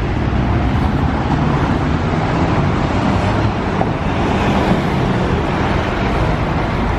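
Steady, loud vehicle and road noise: a low rumble with a hiss of traffic over it.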